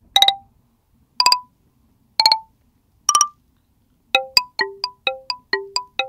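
Background music of clear, bell-like notes: four single notes about a second apart, then a quicker run of notes at about four a second.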